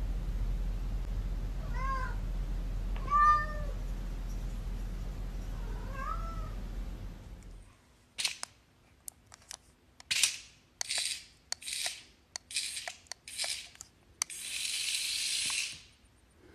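House cat meowing three times, the middle meow loudest, over a steady low hum. After about eight seconds this gives way to a run of short hissing bursts and clicks, ending in one longer hiss of about a second and a half.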